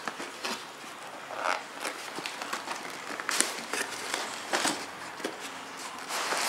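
Cardboard building-brick set box being handled and opened, the lid lifted off: scraping and rustling of card with several sharp taps.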